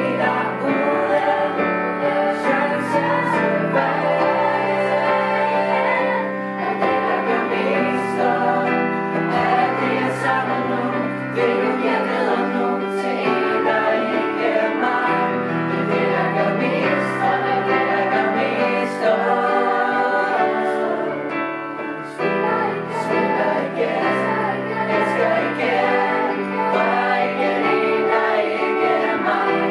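Mixed youth choir singing in parts, accompanied by a digital piano.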